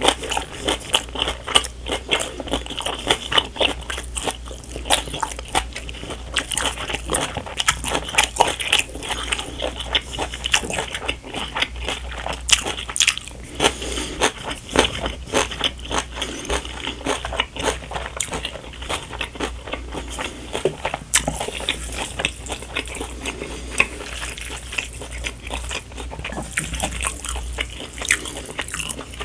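Close-miked eating of spicy stir-fried instant noodles: wet chewing and biting, with many quick clicks and smacks in an irregular stream. A steady low hum runs underneath.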